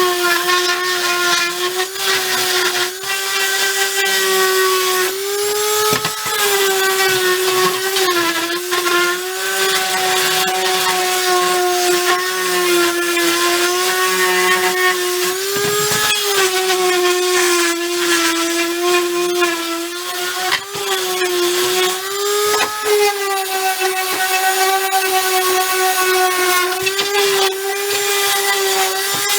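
Electric power sander running steadily on wood, its motor pitch dipping briefly now and then as it is pressed on the board.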